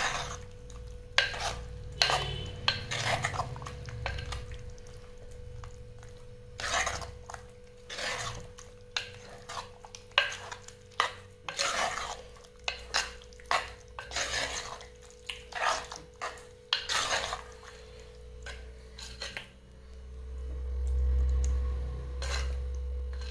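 Steel spoon stirring a thick curry in an earthenware pot, with irregular clinks and scrapes against the clay sides and rim. A faint steady hum lies underneath, and a low rumble swells near the end.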